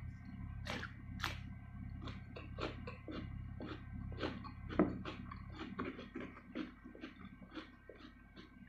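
Close-up crisp crunching and chewing of raw cucumber slices, with sharp bites several times a second and the loudest near the middle. A faint steady low hum runs underneath.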